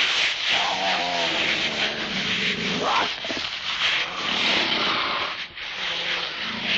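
Giant-monster battle sound effects: a dense, loud rumbling din with bellowing animal-like roars that rise and bend in pitch, one sweeping sharply upward about three seconds in.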